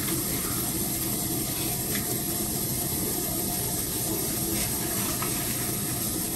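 Steady hiss from a large stainless soup pot heating on a portable tabletop gas burner, with a few faint light clicks.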